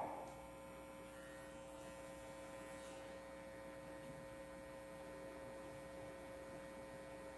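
Faint, steady electrical hum made of a few unchanging tones over low room noise. The tail of a voice dies away in the first half-second.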